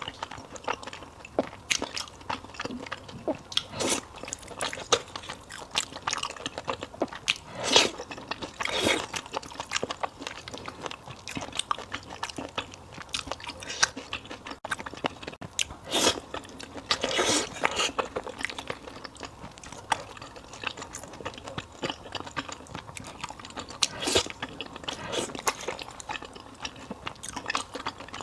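Close-up eating sounds of a person chewing and biting into fried beef noodle soup: a steady run of wet mouth clicks and crunches, with a few longer, louder noises here and there.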